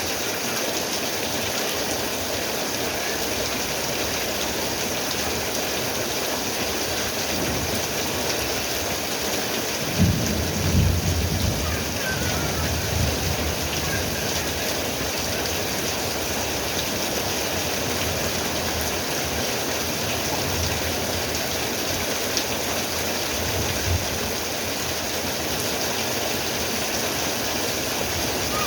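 Steady rain falling, with a low rumble of thunder about ten seconds in and fainter rumbles later on.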